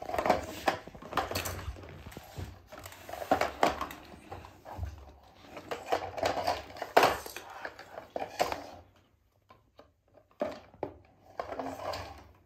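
Plastic toys clattering and knocking as a toddler handles a toy front-loader and small toys on a wooden floor: irregular clacks, busy for most of the time and sparser near the end.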